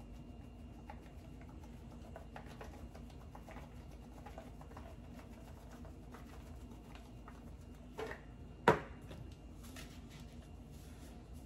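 A handheld spice shaker being shaken over raw fish fillets in a small kitchen, making faint soft ticks and rustles. There is a single sharp knock about three-quarters of the way through, the loudest sound here.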